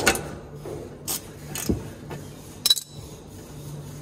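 A few separate metallic clicks and clinks from a 13 mm socket wrench being worked on a bolt. The loudest is a sharp clink with a short ring about two and a half seconds in.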